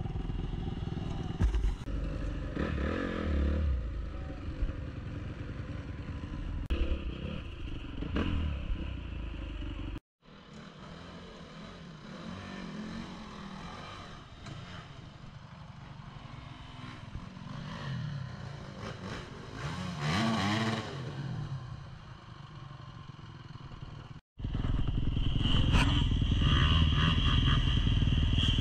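Dirt bike engines revving up and down as they ride, with one bike rising and falling as it passes about two-thirds of the way through. The sound breaks off abruptly twice, and the last few seconds hold a louder, steady high-revving engine.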